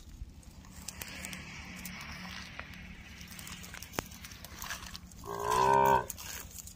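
A calf moos once, a single short call of under a second, about five seconds in.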